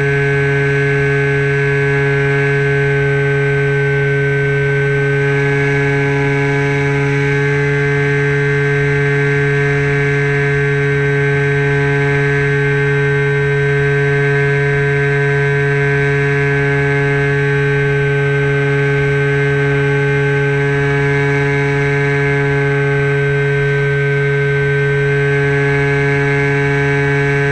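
Electric motor and propeller of an FPV model plane running at steady cruise throttle, giving a constant droning whine with wind rush, heard from a camera mounted on the plane.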